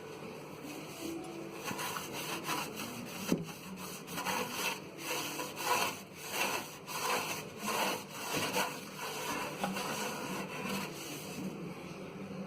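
Hand scrubbing of a microwave oven's surface with the cleaning solution: rhythmic back-and-forth rubbing strokes, about two a second, strongest in the middle.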